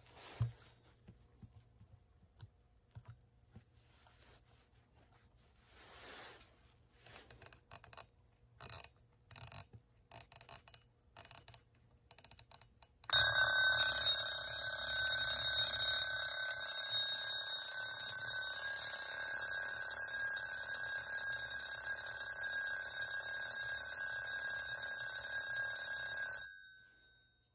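Vintage SWIZA alarm clock: scattered small clicks as it is handled, then about 13 seconds in its alarm rings loudly and steadily, a high continuous ringing that lasts about thirteen seconds and then stops abruptly.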